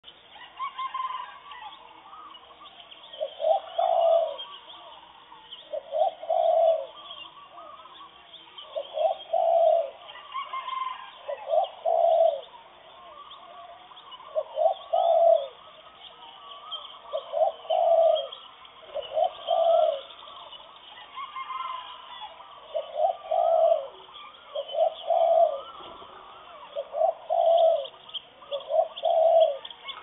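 Morning bird calls: a low cooing call repeated about every two to three seconds, over fainter chirping of other birds.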